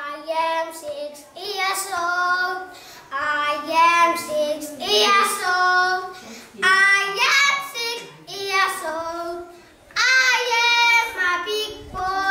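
Schoolchildren singing a song, in phrases of a second or two broken by short pauses for breath.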